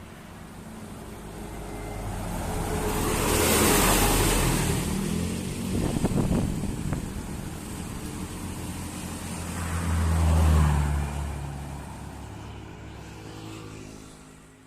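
Large tour bus engine running as the bus moves past. It swells to a first peak about four seconds in with a rush of air and tyre noise, then to a second peak about ten seconds in with a strong low engine note, and fades near the end.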